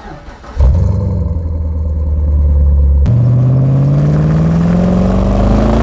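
LS1 5.7-litre V8 in a Chevrolet Lumina SS (Holden VZ Commodore) through a loud exhaust. It comes in loudly about half a second in and holds a steady note, then about halfway through is revved up in one smooth, steadily rising sweep.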